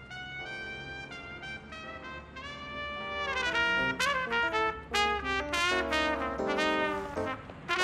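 Trumpet playing a melody. It gets louder about three seconds in and moves on to quicker, shorter notes.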